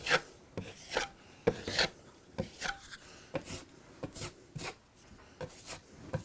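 Steel drywall knife scraping and spreading Sheetrock 45 setting-type joint compound over a drywall patch, in quick short strokes about two a second. This is a thin skim coat being feathered to leave a smooth surface.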